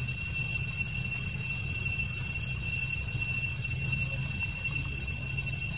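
Steady high-pitched droning whine of a forest insect chorus, with a low rumble beneath it.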